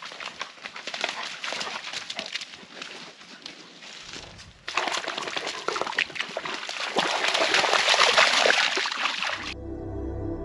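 A dog wading and splashing in shallow pond water, with sloshing and many small splashes that get louder about halfway through. Soft ambient music comes in near the end.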